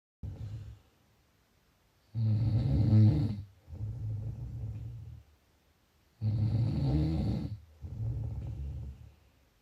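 A sleeper snoring in slow cycles. After a short sound at the very start come two loud snores, about four seconds apart, and each is followed by a quieter, longer breath.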